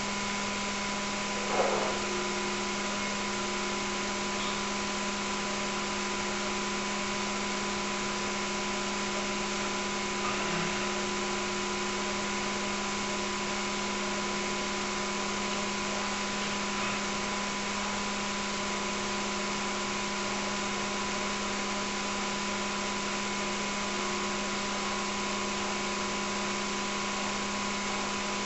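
Steady hiss with a constant electrical hum made of several fixed tones. A short, louder sound about one and a half seconds in, and a fainter one about ten seconds in, break it.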